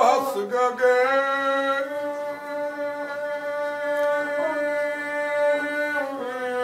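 Rababa, the Bedouin one-string spike fiddle, bowed in one long steady note after a wavering sung line trails off right at the start.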